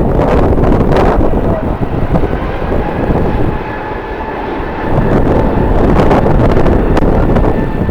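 Jet airliner engines with a faint steady whine, under heavy wind buffeting on the microphone that dips briefly around the middle.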